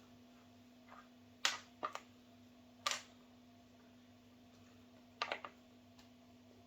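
Plastic Play-Doh toy pieces being handled: a few sharp clicks and taps spread out, with a quick run of clicks about five seconds in, over a faint steady hum.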